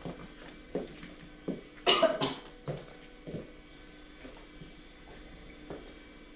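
A person coughs, two quick coughs close together about two seconds in, among a few light knocks and a steady faint hum.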